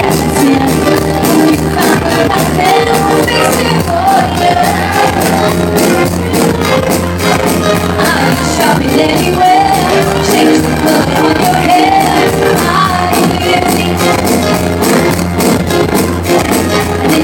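A woman singing live into a microphone over loud pop backing music with a steady, repeating bass line.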